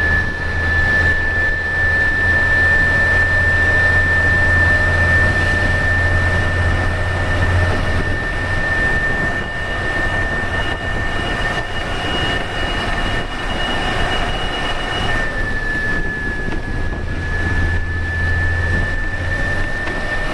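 Turbocharged Ashok Leyland BS-3 bus diesel engine pulling uphill under load, its turbocharger whistling in a steady high tone over the low engine drone. About three-quarters of the way through the whistle drops slightly in pitch and thins out, and the engine drone fades in the middle and comes back near the end.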